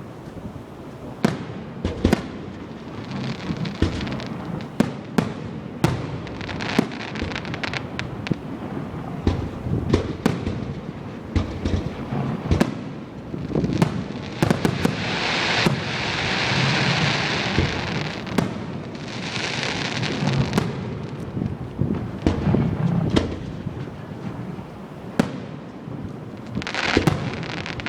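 Fireworks going off: a steady run of sharp bangs, with longer stretches of crackling hiss about halfway through and again near the end.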